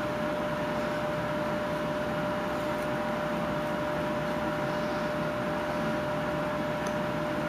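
Steady background hum with a constant whining tone, running evenly throughout.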